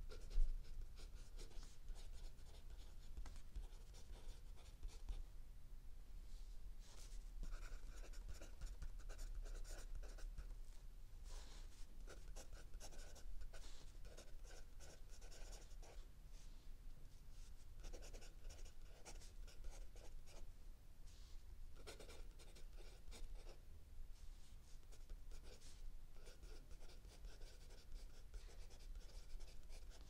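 Mechanical pencil writing on lined notebook paper: runs of short scratching strokes in clusters with brief pauses between words. A single sharp tap just after the start is the loudest moment.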